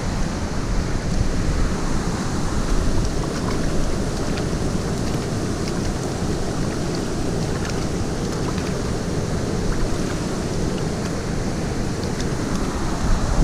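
Steady rush of a shallow stream flowing over rocks close to the microphone, with small, scattered splashes as hands move in the water.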